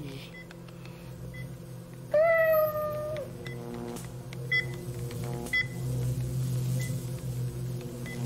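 Cartoon microwave oven running with a steady hum, with small short pips every second or so while sparks fly inside it. About two seconds in, a loud cry lasting about a second rises sharply, then sags slightly in pitch.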